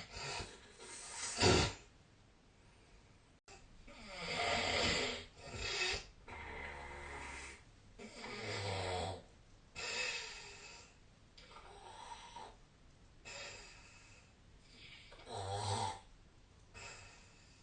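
A person snoring in their sleep: a run of uneven snores and breaths every second or two, with one sharp, loud snort about a second and a half in.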